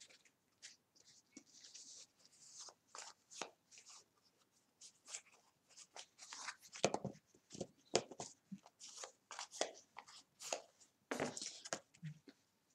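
Baseball trading cards being flipped through by hand in a stack: faint, irregular swishes and flicks of card sliding against card, growing a little busier about halfway through.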